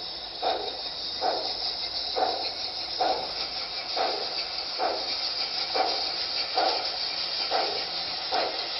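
Sound-equipped HO scale model steam locomotive playing slow steam exhaust chuffs, about one a second, over a steady hiss.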